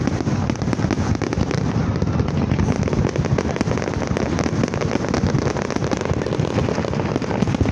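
Fireworks display: a dense, unbroken barrage of bangs and crackling.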